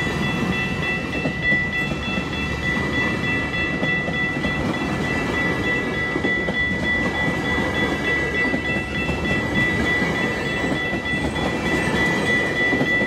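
GO Transit bilevel passenger coaches rolling past at a level crossing, their wheels rumbling and clacking steadily on the rails. Over it the crossing's warning bell rings on with a steady high tone.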